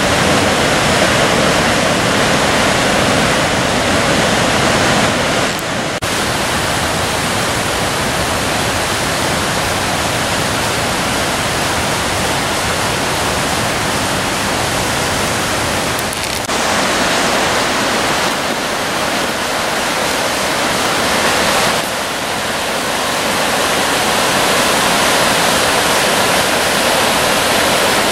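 Steep white-water cascades of the Maskinongé River at Chutes Ste-Ursule, rushing loudly and evenly. For a few seconds partway through, the low rumble thins a little.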